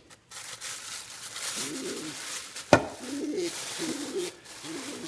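Pigeon cooing in several short, low phrases. A single sharp knock about two and a half seconds in, over a soft rustling noise.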